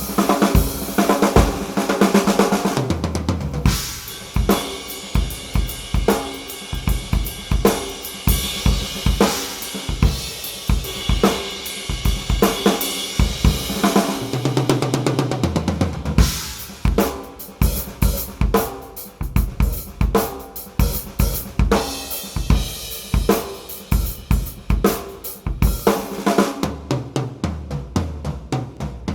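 Drum kit played as a groove: Sakae Trilogy 3-ply maple/poplar/maple shells with stock coated heads, a Ludwig LM552 bronze snare, and Paiste crashes, ride and hi-hats. Kick, snare and hi-hat strokes run steadily, with cymbals ringing strongly in the first half. Two fills move down the toms from high to low, a few seconds in and again about halfway.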